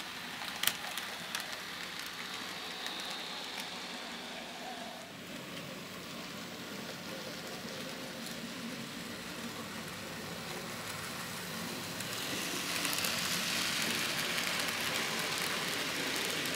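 N scale model trains running on the layout's track, heard as a steady hissing rattle of small wheels and motor with a few sharp clicks near the start. It grows louder about twelve seconds in, as the C38 class steam locomotive and its carriages pass close by.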